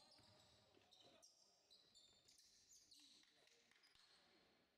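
Very faint sounds of a basketball game in a gym: the ball bouncing on the court and short high sneaker squeaks, with distant voices.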